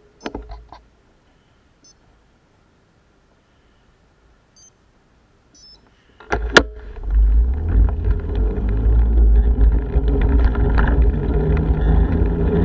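A few light clicks, then near silence; about six seconds in a sharp knock, after which strong wind buffets the microphone of a bike-mounted camera with a loud, steady low rumble as the bicycle rides off over wet tarmac.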